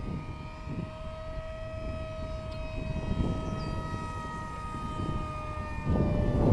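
RC model F-117 Nighthawk flying overhead, its motor and propeller giving a steady whine of several pitches that dips slightly as the plane passes about six seconds in. Low wind rumble on the microphone grows louder at the same moment.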